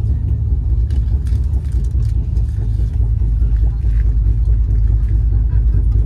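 Steady low rumble of a moving passenger train heard from inside the coach, with a few faint clicks and rattles in the first couple of seconds.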